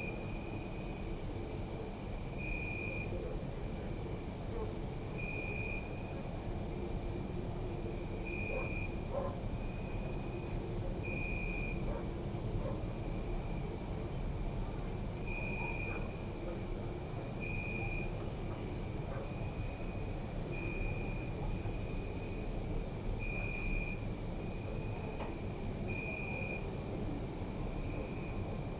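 Crickets chirping: a high, continuous trill that breaks off briefly every few seconds, with a lower short chirp about every two to three seconds, over a low steady background rumble.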